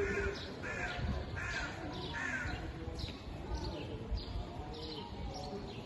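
Birds calling outdoors: a run of four loud, evenly spaced calls in the first couple of seconds, then fainter, higher calls, over a low murmur of distant voices.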